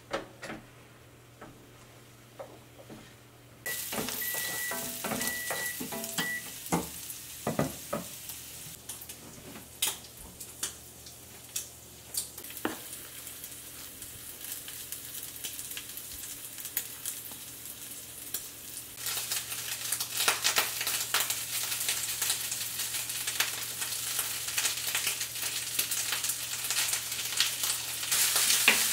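Food sizzling in a hot frying pan, starting suddenly as it goes in and getting louder later on, with sharp knocks of a utensil stirring. A few short high beeps sound just as the sizzling starts.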